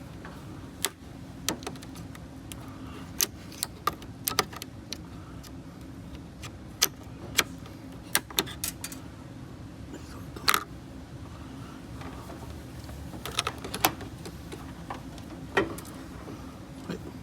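Irregular sharp clicks and taps of hands and tools working at a pickup truck's fuse box as a blown 40-amp starter-solenoid fuse is pulled, over a steady low hum.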